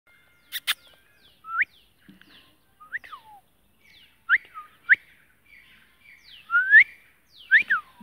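Rose-ringed parakeet calling with a string of short rising whistles, some of them dropping away at the end, about seven calls. Two sharp clicks come just before the first call.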